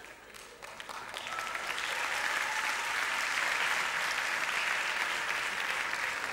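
Theatre audience applauding, the clapping building up about a second in and then holding steady.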